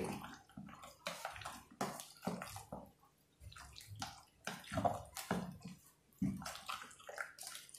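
Raw beef chops being stirred through a wet yogurt and tomato marinade with a metal spoon in a steel bowl: irregular squelching, slopping strokes with the spoon scraping the bowl.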